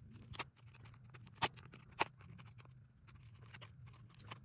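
A metal butter knife scraping and clicking against nylon webbing and the plastic clips of a pouch mount as the webbing is pushed under a clip. A faint run of small scratches and ticks, with two sharper clicks about a second and a half and two seconds in.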